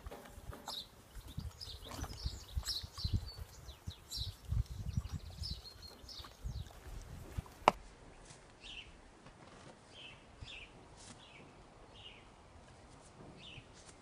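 Low irregular knocks and rubbing from a horse licking and nibbling a mineral salt block, while small birds give short, repeated falling chirps. A sharp click comes about eight seconds in, after which only the bird chirps remain.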